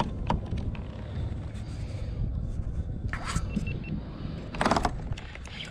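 Wind rumbling on the microphone, with several short scraping and rustling sounds, the loudest a little before the end.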